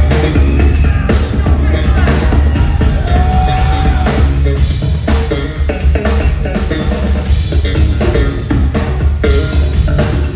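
Live rock band playing loud, with a heavy electric bass and a drum kit beating out the rhythm. About three seconds in, a held note slides up and sustains over the band.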